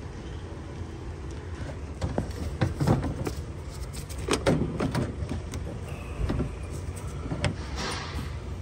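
Scattered knocks and scrapes of a car radiator being worked into place in the engine bay, over a steady low rumble.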